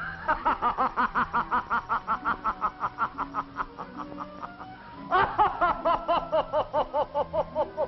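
A person laughing hard in rapid ha-ha-ha pulses, about five a second: one long bout, then a second, higher and louder bout about five seconds in.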